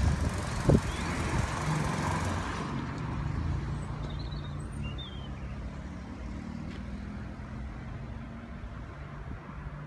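Scania R620's 16-litre V8 diesel engine idling steadily. Wind buffets the microphone for the first two or three seconds, and there is a single knock just under a second in.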